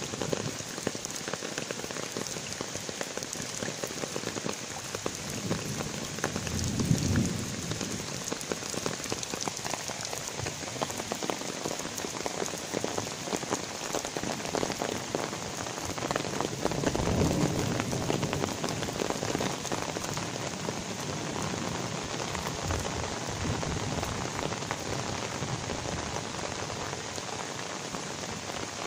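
Steady rain falling on wet pavement and puddles, a dense patter of many small drops. Twice, about 7 and 17 seconds in, a louder low rush swells up over the rain.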